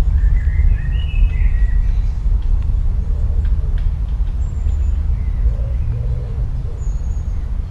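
Countryside ambience: a steady low rumble under birds chirping, loudest in the first second or two, with a few thin high calls later and short low calls near the end.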